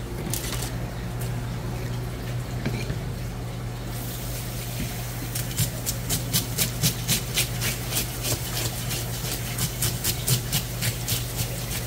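Running water splashing onto a whole fish while a metal fish scaler scrapes off its scales in quick strokes, about four a second. The water comes on about four seconds in and the scraping starts a second or so later, over a steady low hum.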